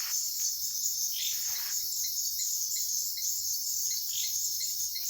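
Night chorus of crickets and other insects: a steady, shrill high-pitched hiss, with a short chirp repeating about two to three times a second. A few brief swishes sound over it.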